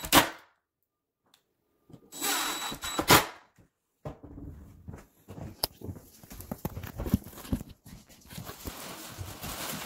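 DeWalt 20V cordless drill driving screws into a concealed cabinet hinge: two short runs of the motor, each ending in a sharp click. After that, scattered light knocks and handling noise.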